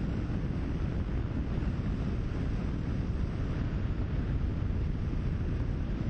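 Wind buffeting the microphone on a Honda XL650V Transalp motorcycle riding at road speed: a steady low rumble, with the bike's running noise underneath.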